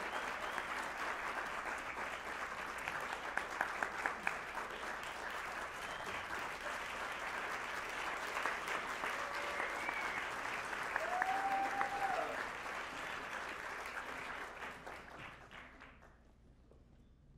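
Concert audience applauding, with a few whoops rising over the clapping, the loudest about twelve seconds in. The applause fades out near the end.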